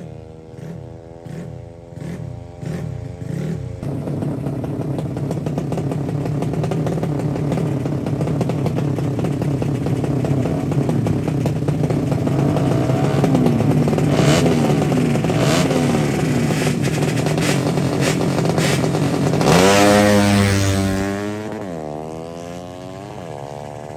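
Drag-racing motorcycle engines revving in short blips, then running hard at full throttle. About twenty seconds in, one bike passes close with a sharp rise and then a drop in pitch, and engine notes fade downward near the end.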